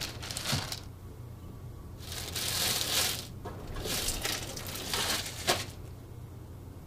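Plastic trash bag crinkling and rustling in irregular bursts as hands work it into the liner of a stainless steel step trash can, with one light knock near the end.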